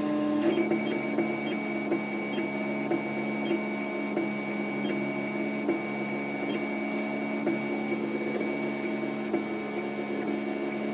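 Scratch-built 3D printer running a print: its stepper motors give a steady hum and a high whine as the print head moves, with light ticks about twice a second.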